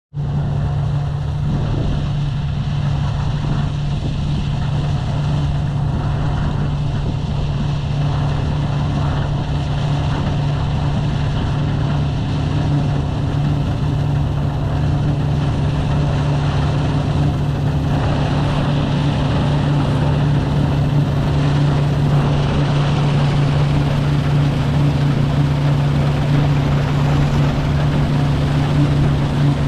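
New Holland CX8070 combine harvester running under load while threshing barley: a steady low engine drone with a constant rushing noise from the machinery, which grows a little louder and brighter about two-thirds of the way through.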